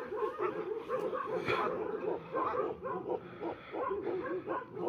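Many shelter dogs barking and yipping together in a dense, overlapping jumble.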